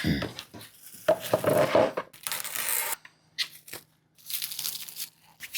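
Irregular crinkling, tearing and scraping noises from hands working with crafting materials, such as clay and its wrapper, at a work table, with a faint low hum underneath in the second half.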